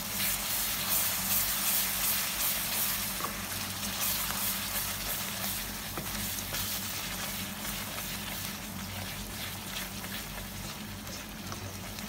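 Onion batter paste sizzling as it fries in oil in a pan, stirred and scraped by a spatula with small scattered ticks. The sizzle is loudest in the first few seconds and eases off a little after.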